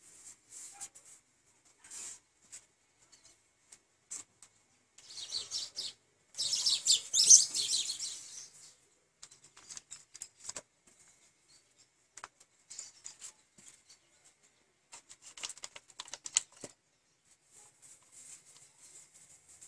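A hand rubbing and smearing paint across a painting board: short rubbing strokes in bursts, the loudest run about five to nine seconds in.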